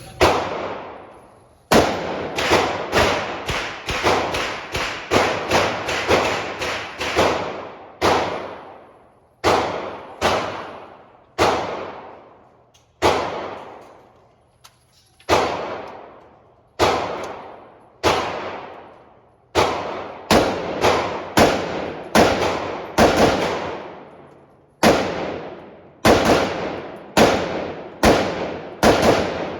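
Semi-automatic gunfire on an indoor range: about thirty shots, some in quick strings about half a second apart, others with pauses of a second or two, each shot ringing out in the room's echo.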